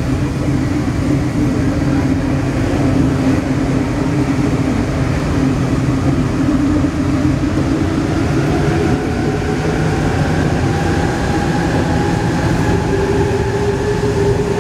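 Alstom NS-16 metro train running at speed, heard from the driver's cab: a steady rumble of wheels on rail. From about eight seconds in, a whine from the traction drive rises slowly in pitch as the train gathers speed.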